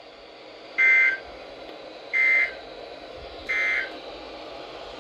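Three short two-tone electronic data bursts about a second and a half apart: the SAME end-of-message tones of an Emergency Alert System broadcast, marking the end of the warning.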